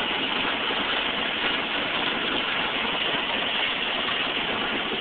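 Automatic car wash spraying water over the car, heard from inside the cabin as a steady rushing noise.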